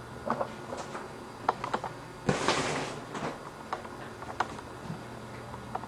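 Handling noise from a handheld camcorder moving through a small bathroom: scattered light clicks and taps, a brief rustling hiss about two and a half seconds in, over a steady low hum.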